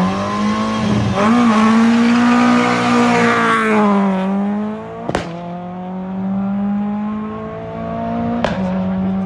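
Citroën hatchback rally car's engine revved hard and held high as it launches from the stage start and pulls away, its pitch dipping briefly about four seconds in before holding steady again. A sharp click about five seconds in and another near the end.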